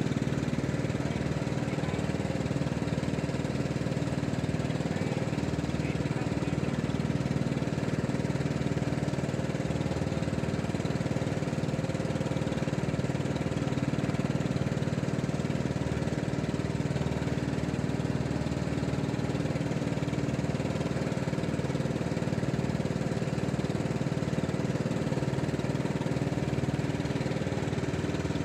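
Small engine running at a steady speed, an even hum with no change in pitch.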